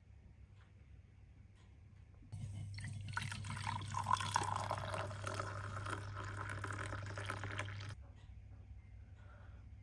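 A thin stream of coffee pouring and splashing into a double-walled glass mug as it fills, over a low steady hum. It starts suddenly about two seconds in and cuts off abruptly about eight seconds in.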